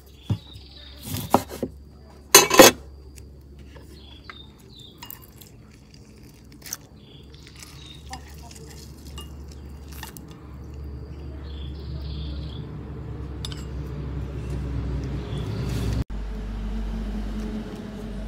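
Metal spoon clinking against a ceramic bowl while stirring a dipping sauce, with a cluster of sharp knocks in the first three seconds, the loudest about two and a half seconds in, and a few lighter taps later. A low hum grows louder through the second half.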